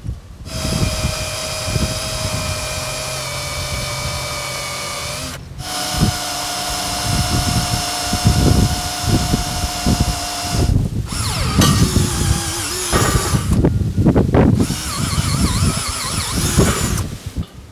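Handheld electric drill running under load in steel: two long steady runs of about five seconds each, then shorter runs with the motor speed rising and falling, with knocks and clanks of metal.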